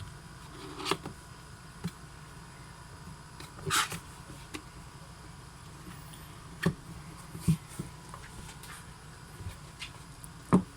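Cardboard product box being opened and handled: scattered light knocks, taps and a short scrape of packaging, with a low steady hum underneath.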